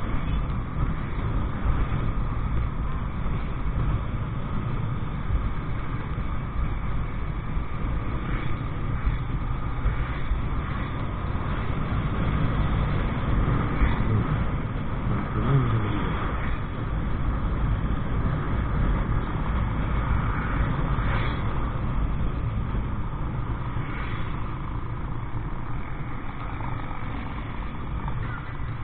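Motorcycle riding along a road, heard from the rider's seat: engine and road noise under a heavy low rumble of wind on the microphone, with a brief rising engine note about halfway through.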